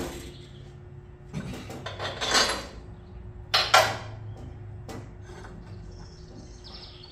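Steel suspension parts and tools clanking and scraping as the air bag brackets are worked into the front suspension. There is a scraping clatter about a second and a half in, a sharper, louder clank about three and a half seconds in and a light click near five seconds.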